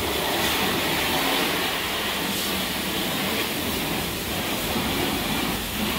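Pressure-washer jet spraying water onto a car's wheel and tyre: a steady hiss.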